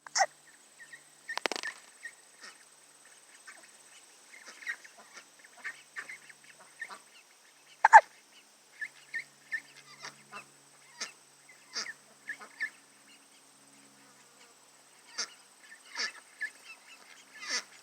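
Ducks calling: many short calls at irregular intervals, the loudest about eight seconds in and another loud one about a second and a half in.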